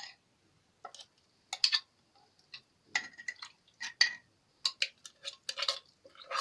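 A dozen or so short, sharp clinks and clicks at irregular intervals from a small glass jar and utensil being handled, a few of them ringing briefly.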